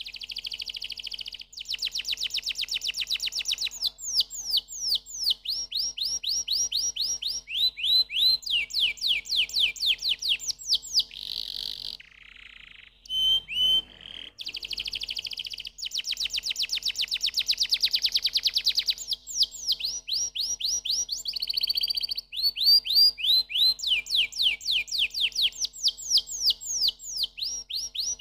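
Domestic canary singing: fast rolling trills and runs of quick, downward-sweeping whistled notes, with a short break about twelve seconds in before the song resumes.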